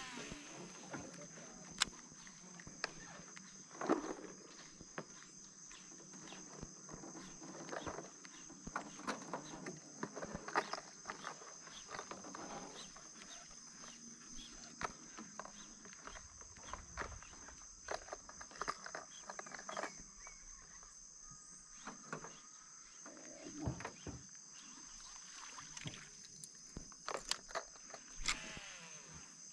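Steady high-pitched insect drone from the surrounding forest, with scattered small clicks and knocks over it.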